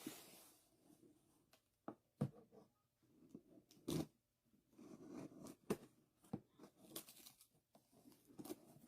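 Faint handling of a cardboard shipping box: scattered taps and clicks with soft rustling between them.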